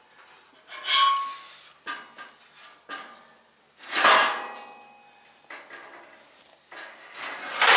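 Steel chassis parts of a Model A Ford hot rod being handled and pulled apart, giving several separate metallic clanks that ring briefly. The loudest come about a second in, about four seconds in and right at the end.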